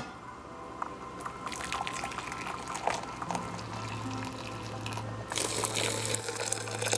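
Just-boiled water being poured to fill about 12 ounces, a light splashing stream that grows fuller and louder about five seconds in. A steady low hum runs underneath.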